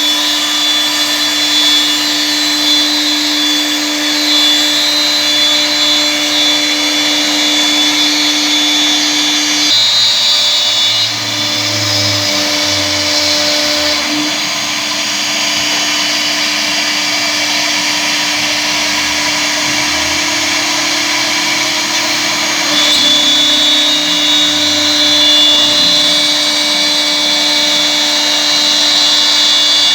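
Air-cooled 2.0 kW spindle of a CNC router whining steadily at high speed while its bit cuts wood. The pitch shifts and dips a few times, with a lower rumble joining in around the middle.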